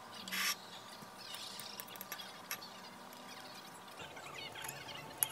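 Fork and knife cutting into a baked kabocha squash on a plate: a short scrape about half a second in, then a few light clinks of metal against the plate.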